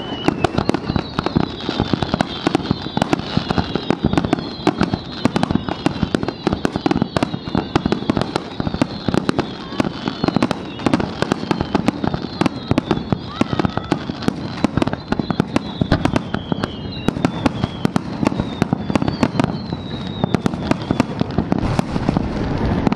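Fireworks display: a rapid, continuous barrage of sharp bangs and crackles from shells and low set pieces, with high tones sliding slowly down in pitch running through it.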